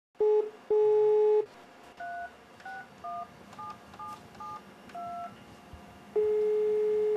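Telephone dial tone, then a quick string of about seven touch-tone (DTMF) key beeps as a number is dialled. A long steady ringing tone starts near the end as the call goes through.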